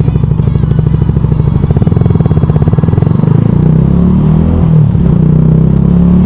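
Yamaha YZF R125's single-cylinder four-stroke engine, running at low revs with a fast, even putter, then revving higher about three seconds in, the pitch rising and falling.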